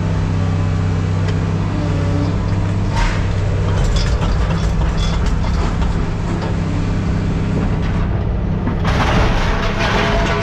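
A heavy machine's engine running with a steady low drone, with scattered knocks and a louder rush of noise starting about nine seconds in.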